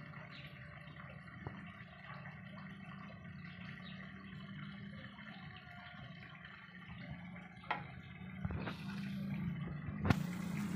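A steady low hum with a few faint clicks, a short hiss near the end, and a sharp knock just before the end.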